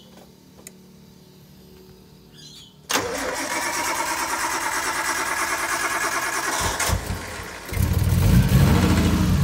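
Nissan S13's turbocharged RB20 straight-six being started: it cranks for about four seconds, falters briefly, then fires and runs loudly about eight seconds in.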